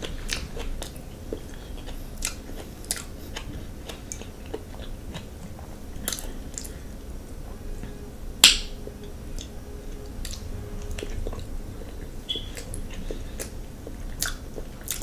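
Close-miked chewing and mouth sounds of a person eating seafood: wet smacks and small clicks scattered throughout, with one louder sharp click about eight and a half seconds in.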